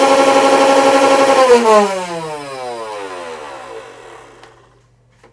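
Nerf Rival Chaos blaster's flywheel motors running on the Nerf Rival rechargeable battery pack with a steady, loud whine, then released about a second and a half in and spinning down, the pitch falling as they fade.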